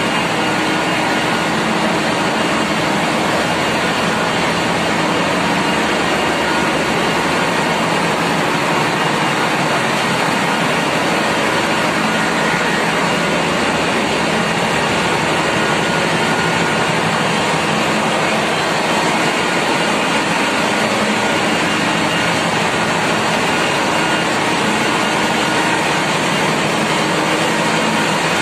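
Ship's engine room machinery running: a loud, steady, even din with a few faint constant hum tones underneath, unchanging throughout.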